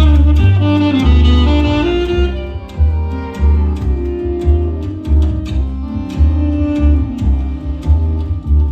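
Instrumental music played through a high-end hi-fi sound system: a sustained melody over a deep bass line that pulses in a steady beat.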